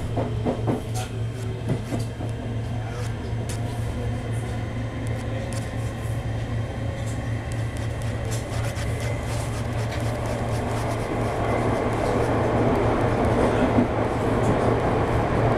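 Cabin noise inside a Southeastern commuter train: a steady low hum with a few sharp clicks and knocks early on. The running noise grows louder from about eleven seconds in.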